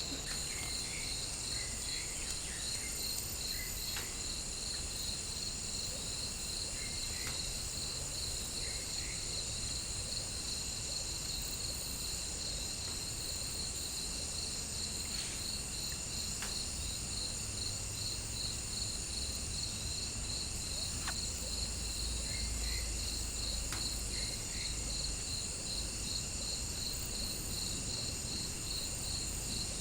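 Forest insects chirring steadily: a fast, evenly pulsing trill over a continuous higher drone, with a few faint short chirps here and there.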